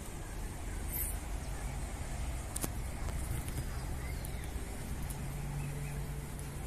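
Steady low engine hum with a faint held tone, with a few light clicks over it.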